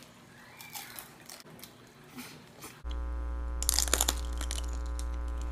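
Biting and crunching into crispy fried food, with loud crunches about four seconds in. A loud, steady low electrical buzz starts suddenly about three seconds in and continues under the crunching.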